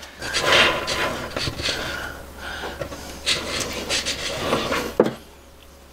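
Can of expanding spray foam hissing unevenly as foam is dispensed into a hole, ending with a sharp click about five seconds in.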